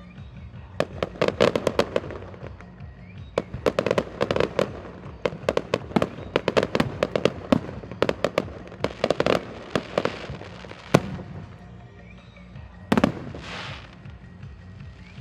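Aerial fireworks crackling in rapid volleys of sharp cracks, dense for most of the stretch, then easing off with one more short burst near the end.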